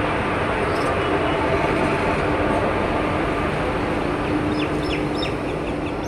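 Electric locomotive of a departing express train passing slowly, a steady rumbling hum, then passenger coaches rolling past on the track. A few short high chirps come near the end.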